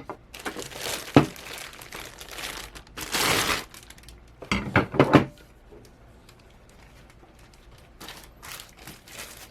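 Plastic wrapping crinkling as metal monitor-mount parts are handled and unwrapped, with a few sharp knocks of the parts, the loudest about a second in and near the middle. Quieter rustling near the end.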